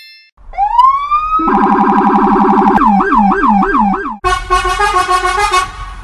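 Electronic emergency-vehicle siren sound effect: it winds up in a rising wail, switches to a fast warble, then to a yelp of about three sweeps a second. About four seconds in it cuts abruptly to a different, steadier sound with several tones at once.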